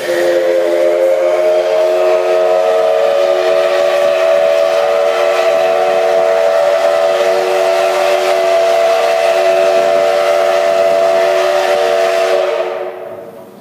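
Steam whistle of the D51 200 steam locomotive sounding one long blast, several notes at once, held steady for about twelve seconds and then dying away near the end.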